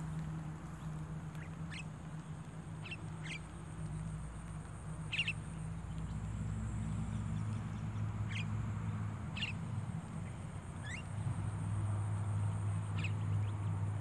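Javan mynas giving short, sharp chirps, about nine scattered irregularly, over a steady low hum.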